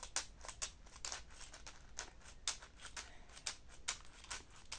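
PVA bag packed with pellets crinkling and rustling in the hands as it is pricked with a pointed tool to make small air holes. Faint, irregular small crackles and clicks, several a second.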